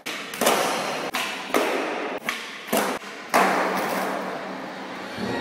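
Skateboard hitting concrete again and again: about seven sharp, echoing knocks over three and a half seconds as the board lands and clatters after a failed flip trick and the skater falls.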